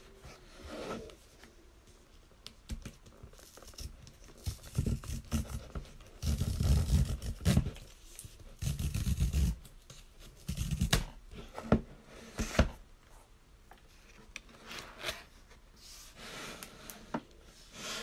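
Hands handling and opening a rigid cardboard box: uneven bursts of cardboard rubbing and scraping, loudest in the middle, with a couple of sharp taps and the lid lifted open near the end.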